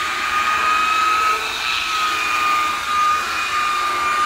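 DeWalt rotary buffer running at a steady speed, its electric motor giving a steady high whine as the foam pad polishes the painted fuel tank.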